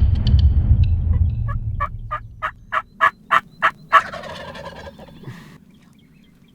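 Wild turkeys calling: a run of about nine evenly spaced sharp notes that grow louder, ending about four seconds in with a longer rolling gobble. A low rumble under the start fades out within the first second and a half.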